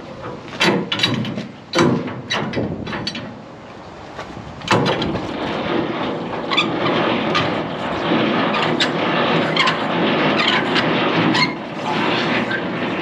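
Metal clanks as truck air-line couplings are handled. About five seconds in, a sudden loud, steady rush of air starts and keeps going: compressed air venting from a tractor unit's trailer air-brake lines.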